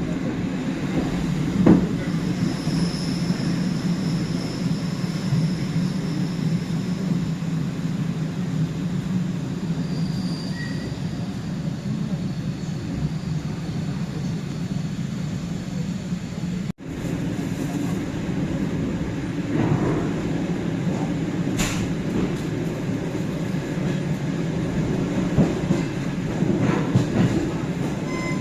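Suburban electric train running, heard from inside the carriage: a steady rumble of wheels and carriage, with a few sharp knocks from the wheels on the track.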